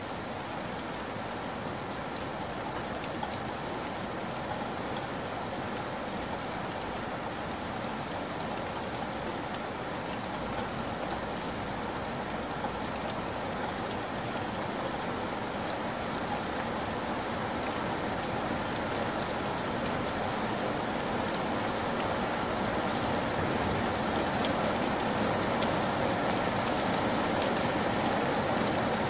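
Steady rain falling, a dense even hiss with fine patter of individual drops, growing slightly louder in the second half.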